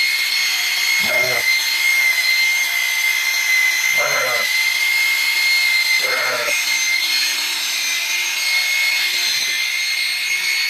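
Handheld electric power tool running steadily with a high-pitched motor whine. Three or four short vocal sounds come over it, about two to three seconds apart.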